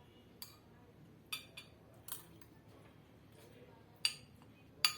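Irregular sharp clinks and taps of kitchenware being handled, about six in all, each ringing briefly; the loudest two come near the end.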